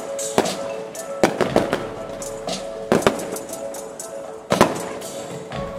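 Aerial fireworks going off in several sharp bangs, the loudest about four and a half seconds in, over steadily playing music.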